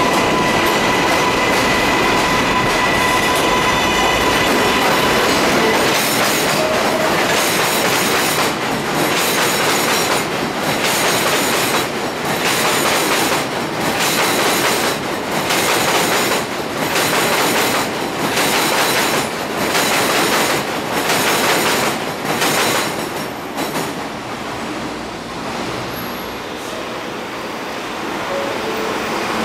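Kawasaki R188 subway train arriving at an elevated platform. At first it is a loud steady rush of wheels on rail with a high whine. It then breaks into a run of evenly spaced clacks that slow as the train brakes, and the sound falls off near the end as the train comes to a stop.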